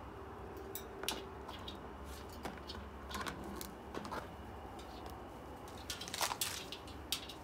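Irregular light clicks and taps, a white cockatoo's beak working at the plastic lid of a nut jar.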